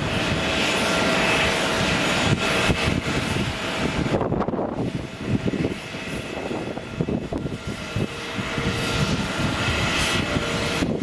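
Four jet engines of a Boeing 747-400 airliner, heard as a steady roar with a faint whine on top, easing off briefly about four seconds in and building again near the end.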